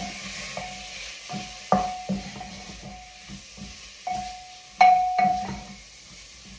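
Wooden spoon knocking and scraping against the side of a black pressure cooker while stirring chicken and spices. Each knock sets the pot ringing briefly, with the two loudest about a second and a half and nearly five seconds in, over a faint sizzle of frying.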